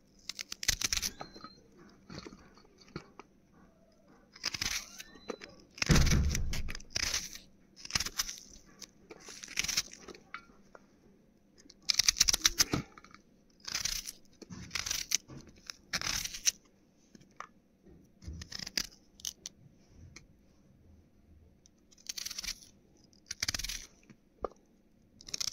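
Peeled raw onions being cut with a knife: crisp crunching strokes in short, irregular bursts every second or two, with one heavier thud about six seconds in.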